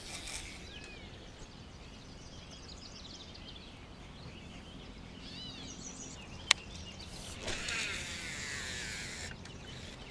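Quiet lakeside morning ambience with a few scattered bird calls. A single sharp click comes about six and a half seconds in, followed by about two seconds of busier high-pitched wavering sound.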